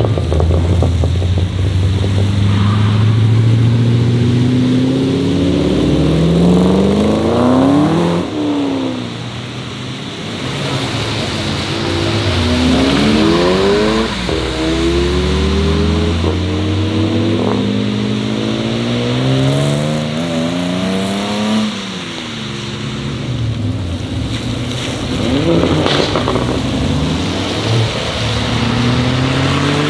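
Several cars accelerating away one after another, each engine note climbing in pitch as it pulls through the gears and dropping as the car passes, over the hiss of tyres on the wet road.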